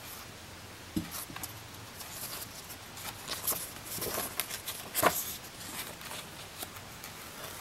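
Pages of a hardcover picture book being handled and turned: soft paper rustles and light taps, with a louder swish of the page turning about five seconds in.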